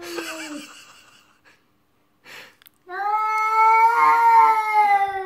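Siamese cat yowling in long, drawn-out cries: one fading out in the first second, then a louder one starting about three seconds in and lasting about two seconds. It is the agitated yowl of a cat confronting a small dog, its tail puffed up.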